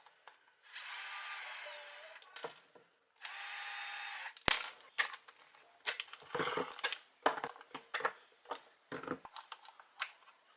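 A small electric motor whines in two bursts of about a second and a half each, and the pitch drops as the first burst winds down. Irregular sharp clicks and knocks follow.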